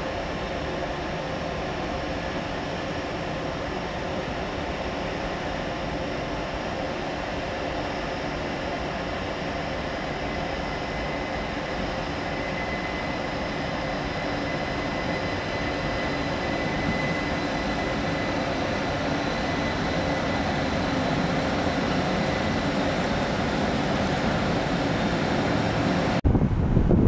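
Railway train running steadily, with a steady whine over a broad rumble that slowly grows louder. Near the end it cuts off abruptly to wind buffeting the microphone.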